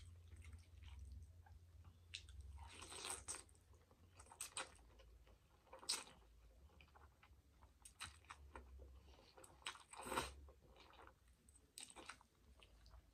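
Close-miked chewing of spaghetti with meat sauce: short wet mouth smacks every second or two, over a low steady hum.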